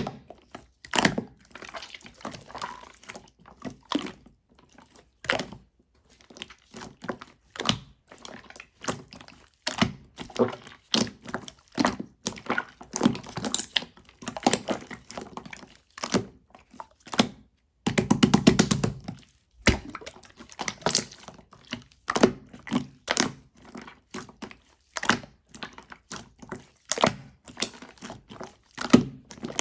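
Blue slime being squished and poked by hand: irregular sticky clicks and pops of trapped air. A little past the middle there is a rapid run of crackling pops.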